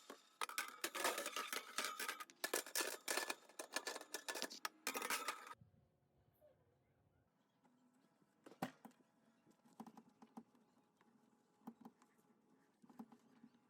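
Fast scrubbing or scraping strokes on a hard surface during cleaning, stopping suddenly about five and a half seconds in. A few faint knocks follow.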